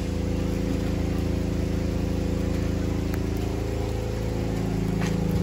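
A steady low drone made of several held tones, starting suddenly and running on evenly, with a couple of faint ticks.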